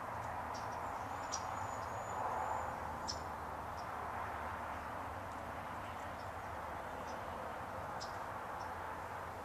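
Outdoor background ambience: a steady noisy hum with scattered faint high chirps, and a thin high whistle lasting about a second that starts about a second in, typical of small birds or insects.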